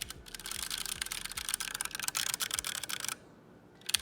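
Crinkly rustling of packaging as the keyboard is handled and lifted out of its box, lasting about three seconds, followed near the end by a short run of quick clicks.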